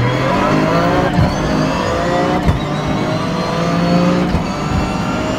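Toyota GR Yaris 1.6-litre turbo three-cylinder under hard acceleration, heard from inside the cabin, with a whine from the straight-cut dog gears of its sequential gearbox climbing in pitch. A few sharp clunks come about a second in, midway and near the end; these are typical of the dog-box shifts.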